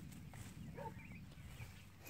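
Standard Poodle puppies play-wrestling on grass, with a faint short squeak just under a second in, over a low rumble of wind on the microphone.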